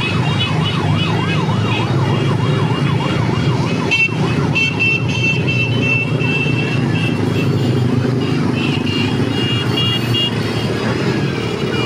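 Many small motorcycles riding past in a convoy, their engines running together steadily. In the first few seconds a warbling siren-like tone rises and falls about twice a second. Steady high beeping tones come and go over the engines.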